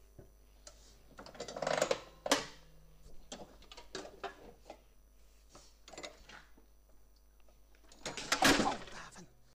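Scattered light clicks and taps, with short rustling bursts about two seconds in and, loudest, near the end.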